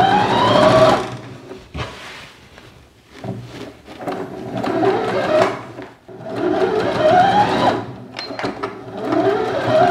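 Elna 450 electric sewing machine stitching through fabric in four short runs. Its motor whine rises in pitch as it speeds up in each run, and it drops away in the pauses between runs.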